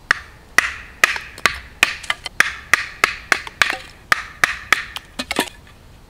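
Wooden baton striking the spine of a Ganzo G745 folding knife, driving its blade down through an upright stick: a steady run of sharp wooden knocks, about three a second. The knife is being tested at light batoning.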